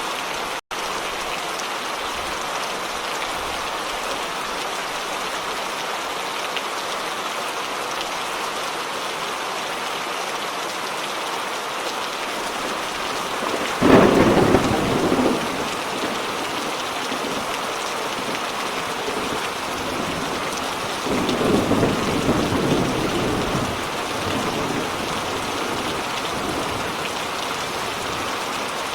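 Steady rain falling, with a sharp clap of thunder about halfway through and a lower rolling rumble of thunder a few seconds later. There is a split-second gap in the sound near the start.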